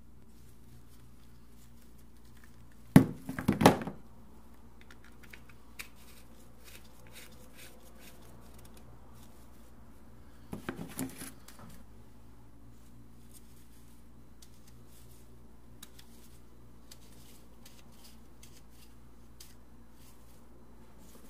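Handling noise of a coiled clear plastic hose and its plastic fittings being moved by gloved hands on a tabletop. Two short bursts of rustling and knocking come, the louder about three seconds in and another about ten and a half seconds in, with scattered light clicks over a steady low hum.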